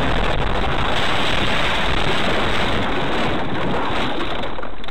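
Loud, steady wind-like rushing noise on a dashcam's microphone, with no distinct impacts. It cuts off suddenly at the end.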